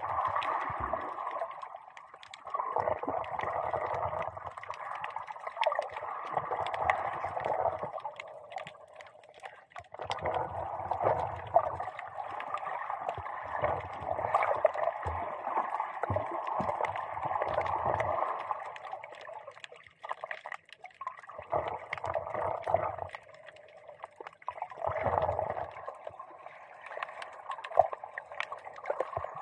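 Muffled water sloshing and gurgling around a camera held just below the surface, heard through its waterproof dive housing. It comes in surges of a few seconds with brief lulls between them.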